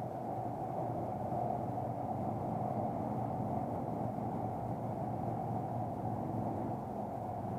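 Steady rush of shallow river water flowing, dull and muffled, with no distinct splashes.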